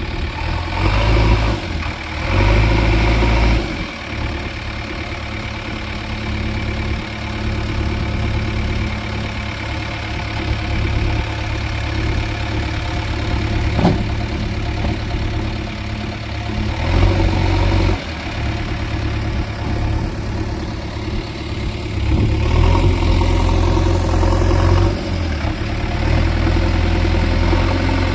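JCB 3DX backhoe loader's diesel engine running steadily, rising into louder spells of revving about a second in, briefly a little after the middle, and over the last several seconds as the machine works. A single sharp knock sounds near the middle.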